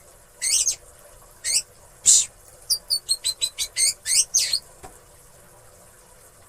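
Oriental magpie-robin (kacer) singing: three separate high whistled notes, then a quick run of short chirping notes, falling quiet about two-thirds of the way through.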